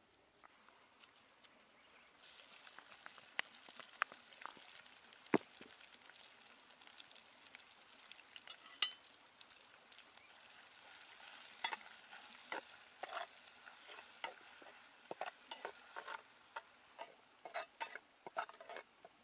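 Chopped chilies frying in oil in a clay pot, a faint steady sizzle that starts about two seconds in. In the second half a spatula stirs the mixture, with frequent scraping clicks against the pot.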